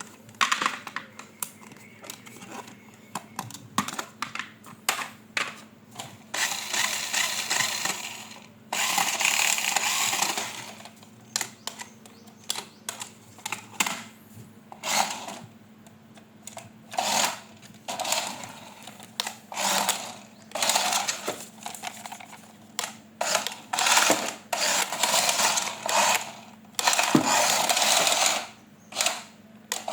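Toy packaging and parts being handled during an unboxing: a run of clicks and knocks broken by several longer rustling stretches, the longest about a third of the way in and again near the end, over a faint steady hum.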